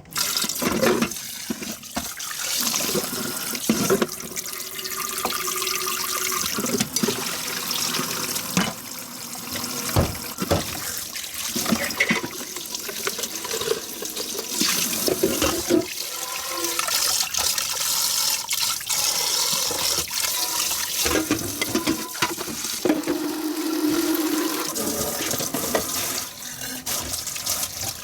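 Running tap water splashing over dishes in a kitchen sink, with frequent clinks and knocks of dishes being handled and washed.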